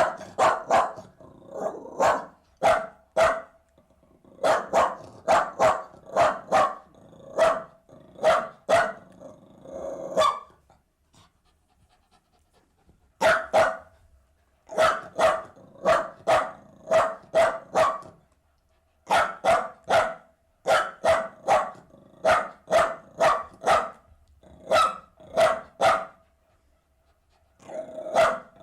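Jack Russell terrier barking in quick runs of short, sharp barks, about two a second, broken twice by pauses of a couple of seconds.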